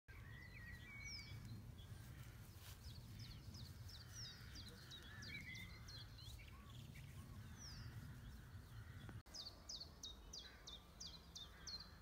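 Small birds calling and singing: many short, sharp chirps falling in pitch, in a fast repeated run of about two a second near the end, over a low steady rumble. The sound drops out for an instant just past nine seconds in.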